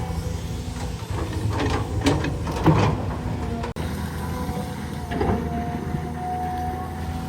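Heavy diesel engine running steadily, with irregular creaks and scrapes about one and a half to three seconds in and again about five seconds in, followed by a steady thin whine.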